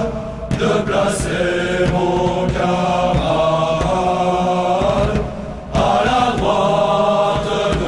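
Background music with a chanted vocal line of long held notes over a steady low drone, breaking off briefly about five seconds in.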